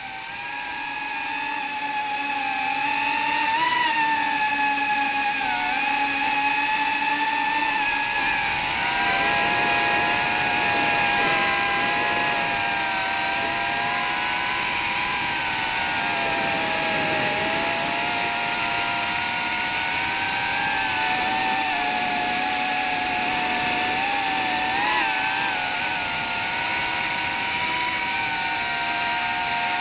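Small FPV drone's brushless motors whining, heard close-up through its onboard camera. The sound grows louder over the first few seconds as the drone lifts off, then holds, its pitch rising and dipping with the throttle.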